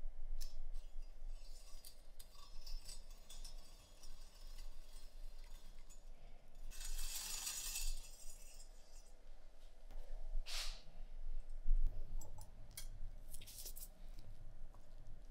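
Light metallic clicks and clinks of a thin wire being worked into the rusted barrel of a Carcano rifle, with a longer scrape about seven seconds in and shorter ones later.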